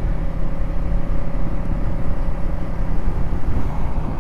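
KTM Duke motorcycle running at a steady cruising speed, heard from the bike itself: a steady engine hum under heavy road and wind rumble.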